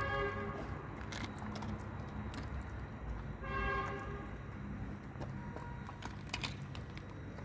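A dog chewing and crunching raw chicken pieces with bone, with a few sharp cracks, over a steady low street hum. Two short horn toots sound, one at the start and one about three and a half seconds in.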